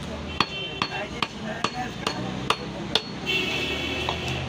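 A butcher's heavy knife chopping beef on a wooden log block: about seven sharp strikes, roughly two to three a second. Near the end the chopping stops and a steady drone takes over.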